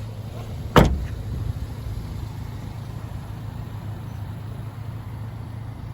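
1999 Subaru Sambar mini truck's 660 cc four-cylinder engine idling with a steady low hum. A single sharp knock comes about a second in.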